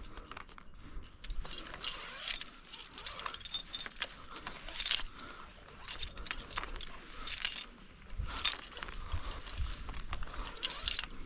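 Climbing hardware, carabiners and quickdraws, clinking and jingling irregularly while a rope is hauled hand over hand through the top anchor.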